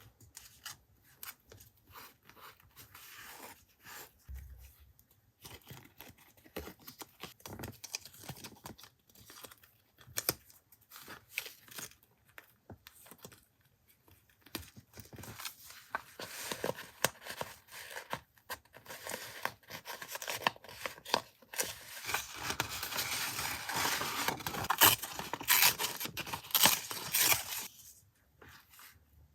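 Close-up paper sounds: scattered rustles and light clicks at first, building in the second half into a denser, louder run of paper tearing and crinkling that stops about a second before the end.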